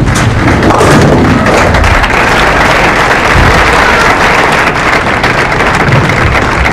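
Crowd applauding in a bowling arena: a dense, steady clatter of clapping that builds in the first second and holds.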